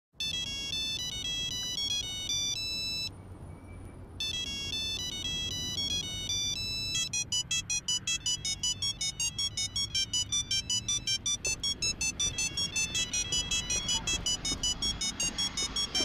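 Monophonic mobile-phone ringtone playing a beeping melody of single notes. It breaks off for about a second near the three-second mark, then picks up again, and from about seven seconds in runs as a quick, even stream of short notes, about five or six a second.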